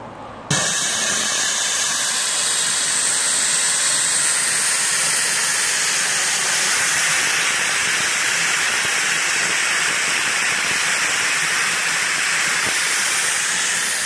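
Small live-steam fire-tube boiler blowing off steam through a pop-off safety valve in a loud, steady hiss that starts abruptly about half a second in. The gauge stands near 50 psi, the pressure at which the first pop-off valve opens.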